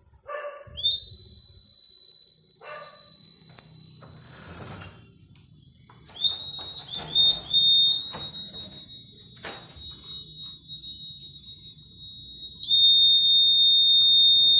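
Electronic alarm buzzer of a homemade IR-sensor security alarm sounding a continuous high-pitched beep, triggered by the sensor. It cuts out for about a second midway, then comes back with a brief stutter and holds steady, dropping slightly in pitch near the end.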